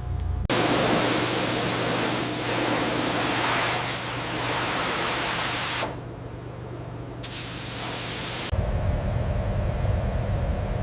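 A loud spraying hiss, like escaping air or a spray jet, starts about half a second in and runs for about five seconds. A shorter burst of hiss follows after a pause, and then a low machine rumble with a steady hum sets in.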